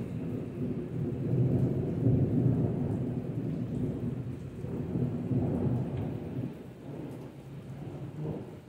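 Rolling thunder with rain falling. The thunder swells about a second in, rises again around five seconds, then fades.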